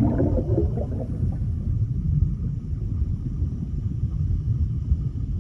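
Underwater sound effect: a steady low rumble, with bubbling during the first second.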